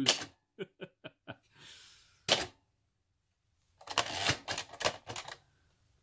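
Singer Professional T-62 manual typewriter, a rebadged Royal Safari, being typed on in irregular bursts. A quick run of four light clicks comes first, then a single sharp keystroke about two seconds in, and after a short pause a rapid cluster of keystrokes.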